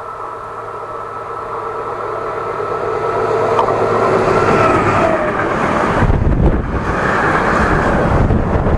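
Class 753.6 'Bizon' diesel locomotive approaching and passing at speed. Its steady engine tones grow louder and drop in pitch as it goes by about five seconds in, and then the tank wagons behind it roll past with a low rumble and wheel clatter.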